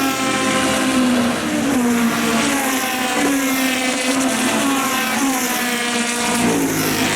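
Historic single-seater racing car engine at full throttle. Its pitch climbs and drops back several times as it shifts up through the gears.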